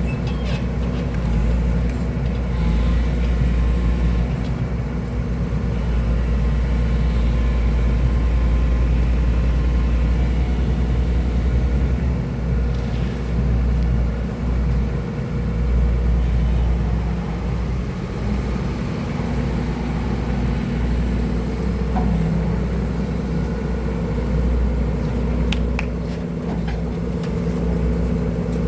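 Excavator's diesel engine running steadily with a low rumble, its level rising and dipping a little as the machine works. A few sharp clicks come near the end.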